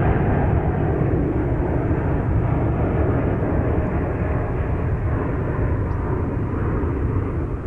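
Jet engines of a United Airlines Boeing 787-9, two GE GEnx-1B turbofans at takeoff power, heard as a steady, deep rushing noise that slowly fades as the airliner departs.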